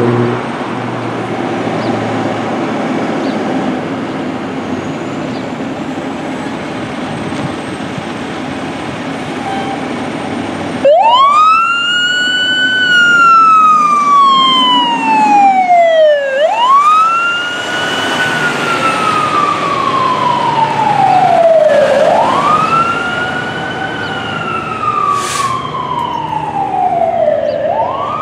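A 2015 Pierce Arrow XT tiller ladder truck's diesel engine running as the truck pulls out. About eleven seconds in its siren starts wailing, in three cycles, each a quick rise in pitch and a slower fall, with a short hiss near the end.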